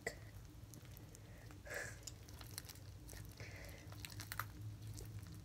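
Homemade butter slime being kneaded and pulled apart by hand: faint sticky squishes and small clicks. The slime is stiff and not stretchy.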